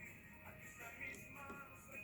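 Faint background music with a couple of soft clicks.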